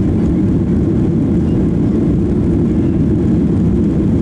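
Boeing 737-800's CFM56-7B jet engines and rushing air during the takeoff: a steady, heavy low roar with little high-pitched sound in it.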